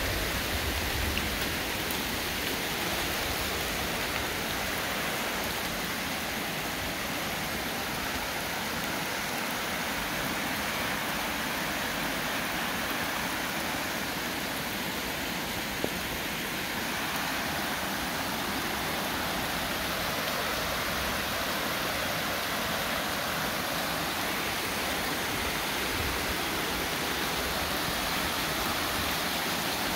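Heavy rain falling steadily, mixed with the rushing of overflow water from a pond pouring down a muddy slope.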